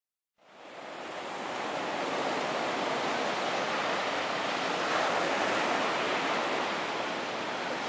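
Ocean surf on a beach: a steady rushing wash of waves that fades in about half a second in and holds level.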